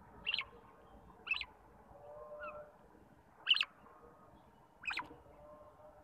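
Rose-ringed parakeets giving four short, shrill calls spaced one to two seconds apart, over faint chirping of other birds.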